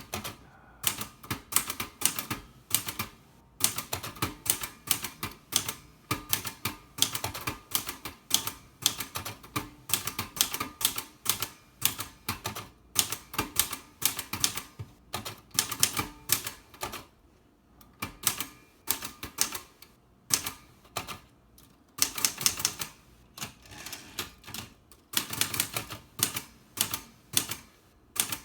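1965 Olivetti Lettera 32 manual portable typewriter being typed on: quick runs of sharp typebar strikes, several a second, broken by short pauses between words and lines.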